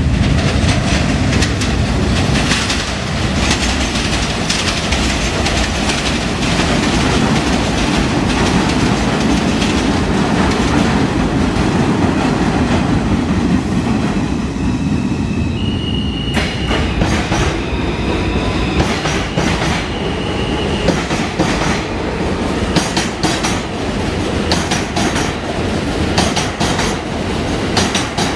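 New York City Subway trains, among them an R160-series F train, running through the station: a steady rumble of wheels on rail with clickety-clack over the rail joints. A high, steady wheel squeal rings out for several seconds about halfway through.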